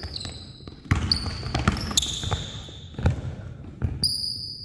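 A basketball bouncing on a hardwood gym floor, about five irregular dribbles, with basketball shoes giving high squeaks on the floor three times.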